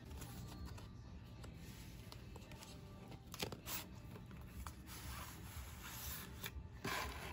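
Cardboard scraping and rubbing as the inner tray of a paper stylus-pen box is slid out of its sleeve: two short scrapes a little past the middle and a longer one near the end, over faint background music.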